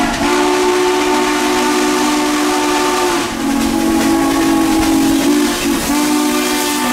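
Chime steam whistle of a 2-8-2 Mikado steam locomotive blowing one long, continuous chord over a steady hiss. The tone shifts briefly about three seconds in and again about five and a half seconds in.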